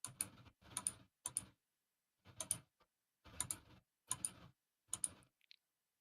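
Soft clicks and taps in short, irregularly spaced clusters, about eight of them, with silence between.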